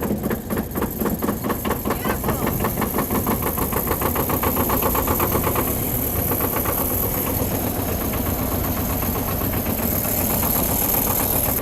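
1961 Porsche Diesel Standard T's two-cylinder air-cooled diesel engine starting after glow-plug preheat and running with an even, rapid knocking beat.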